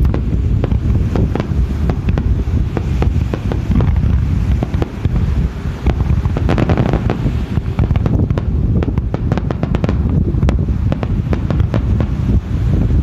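Fireworks display: aerial shells bursting in quick, irregular succession, sharp bangs and crackles over a continuous low rumble, with a dense spell of crackling about halfway through.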